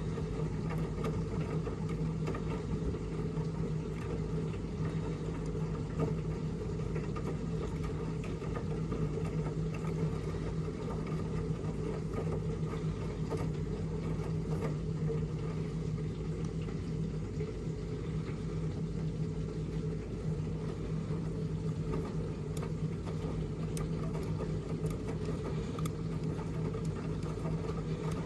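Miele W1 Active washing machine running with a steady, even hum and whir.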